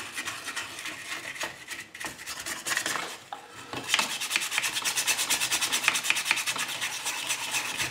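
Toothbrush scrubbing car polishing compound over the tinplate body of a toy train locomotive, a scratchy back-and-forth rubbing of bristles on metal. It is uneven at first, then settles into quick, even strokes, several a second, about four seconds in.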